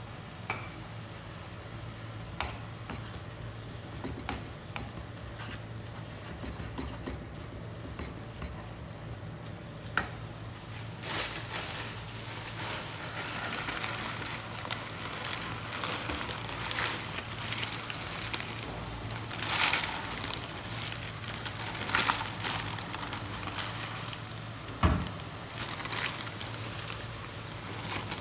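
Noodles sizzling in a wok while being stirred and scraped with a wooden spatula, with occasional sharp clicks of the spatula against the pan and a steady low hum underneath. The sizzling gets louder from about a third of the way in, and a heavy thump sounds near the end.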